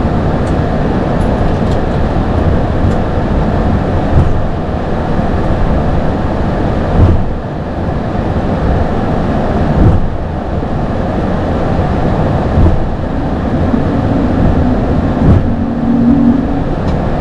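Airbus A220-300 in motion: a loud, steady rumble with a few brief thumps spread through it and a faint steady tone late on.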